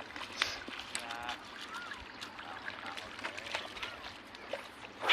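Quiet outdoor background with scattered light clicks and a few faint, short rising-and-falling calls, then one sharp knock near the end, the loudest sound.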